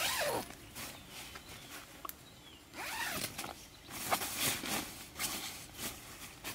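Zipper on a nylon tent door being unzipped in a few long pulls, with rustling of the tent fabric in between.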